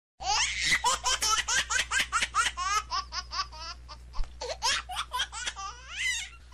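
High-pitched laughter added as a comedy sound effect: a long run of quick giggling 'ha-ha' bursts, about five a second, rising and falling in pitch. It starts and stops abruptly, as a clip cut in during editing.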